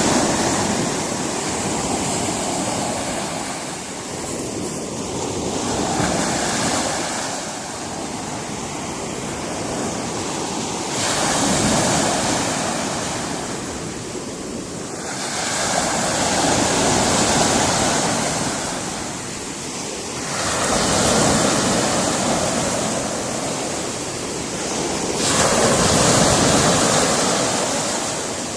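Sea surf breaking on a rocky shore, the wash of the waves swelling and falling back in slow surges about every five seconds.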